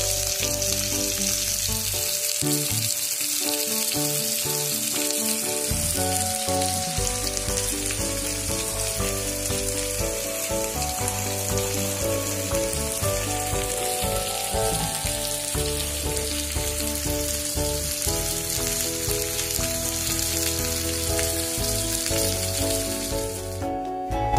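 Marinated chicken pieces sizzling steadily as they shallow-fry in oil in a pan, with soft background music underneath. The sizzling cuts off just before the end.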